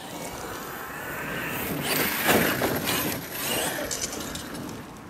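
Arrma Kraton EXB 8S RC monster truck with a brushless electric motor driving across a dirt woodland track, a rushing mechanical running sound that rises to its loudest a little over two seconds in, then eases off.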